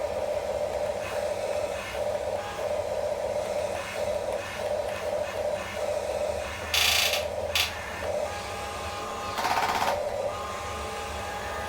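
Small electric motors and plastic gearboxes of mini remote-control construction toys running with a steady, pulsing whine. Louder buzzing bursts come about seven seconds in, briefly again just after, and around nine and a half seconds in.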